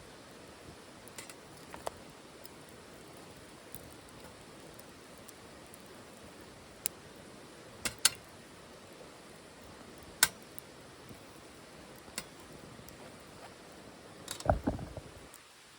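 Wood fire burning in a titanium wood stove: a steady soft hiss with scattered sharp crackles and pops, the loudest about 8 and 10 seconds in. Near the end comes a short cluster of low thumps.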